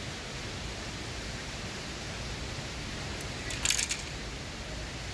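Steady rush of flowing water, with a brief cluster of sharp clicks a little over three seconds in.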